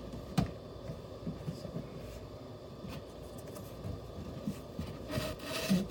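Hands handling an opened cardboard box and its contents: a sharp knock about half a second in, light clicks, then rustling near the end.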